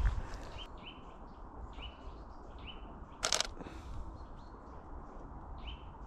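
A small songbird calling over and over with short, high chirps about half a second apart, over a low rumble. There is one brief noisy swish or rustle about three seconds in.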